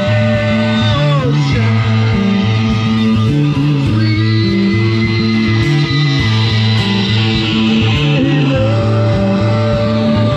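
Live rock band playing: electric guitars and drums, with a singer on a microphone through small amplifiers, long notes held near the start and again near the end.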